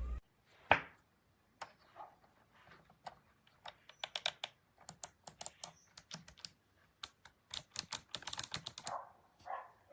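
Keys on a keyboard clicking in irregular taps, quickening into a rapid flurry of keystrokes about seven seconds in.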